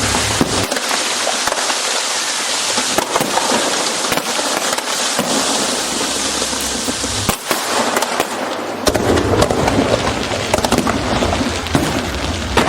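Aerial fireworks display: a dense crackle with many sharp pops and bangs. A low rumble drops away early on and comes back about nine seconds in.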